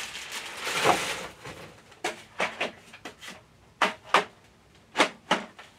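A plastic bag rustling as a large hard-plastic toy dinosaur torso is pulled from it, then about eight short sharp clicks and knocks, spaced irregularly, as the figure is handled.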